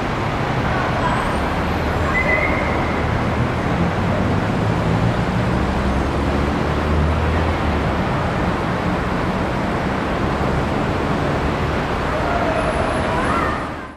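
Steady city traffic noise with a low vehicle engine hum, strongest about halfway through, fading out at the very end.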